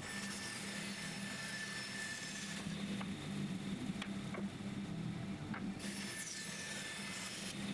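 Bandsaw cutting solid timber in two passes, one over the first two and a half seconds and another starting about six seconds in. Between the passes the cutting noise drops away, leaving the machine's steady hum.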